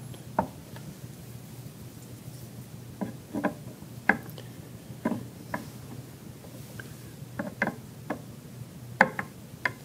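Light clicks and knocks of hard statue pieces being handled, about a dozen at irregular intervals, as the arms are fitted onto the statue's body. A faint steady low hum runs underneath.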